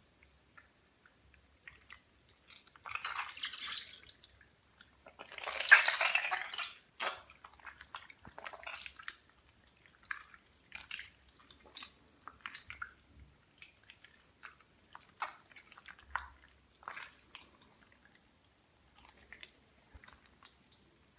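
Wet squelching and dripping of a slime-soaked sock as it is squeezed and kneaded by hand in a bucket of green slime. Two longer, louder squelches come in the first seven seconds, followed by many short ones.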